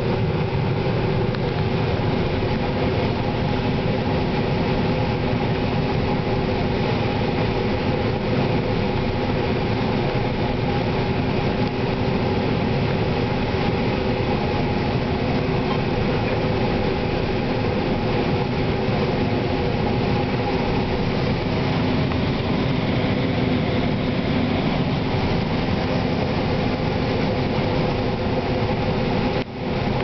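A 1993 John Deere 9500 combine's diesel engine and harvesting machinery running steadily under load as it takes in standing corn, heard from inside the cab. It makes an even mechanical hum with several steady tones over a constant rush of noise, briefly dropping just before the end.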